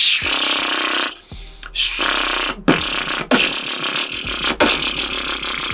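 Beatboxing lip-roll demonstration: mouth-made beats with long hissing sounds in the first half, then a rapid fine fluttering of the lips, the lip roll, running through the second half under short sharp hits.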